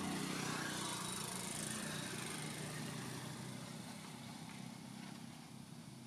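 A motor engine running steadily in the background, loudest at the start and slowly fading away.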